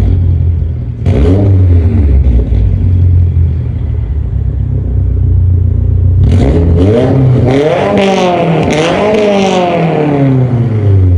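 Straight-piped Subaru VB WRX's turbocharged 2.4-litre flat-four idling, blipped briefly about a second in. About six seconds in it is revved up twice in quick succession, then drops back to idle near the end.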